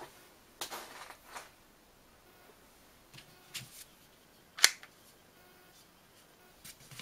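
Light handling rustles of a Toyota flip key, then one sharp click about two-thirds of the way through as its spring-loaded blade snaps open.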